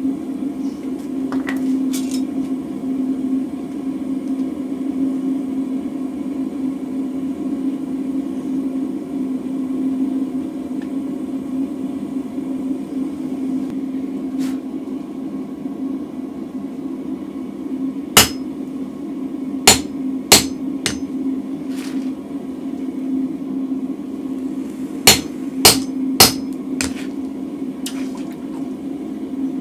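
Blacksmith's hammer blows on hot mild steel at the anvil: six sharp strikes in two quick groups of three, with a few lighter knocks between, over a steady low hum.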